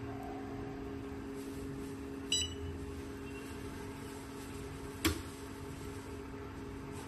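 Mini jewelry laser welding machine humming steadily, with one short electronic beep about two seconds in and a single sharp snap about five seconds in.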